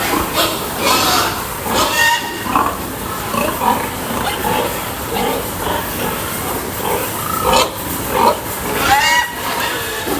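Many pigs grunting and squealing together, short overlapping calls over a steady background din, with a few louder, higher squeals near the end.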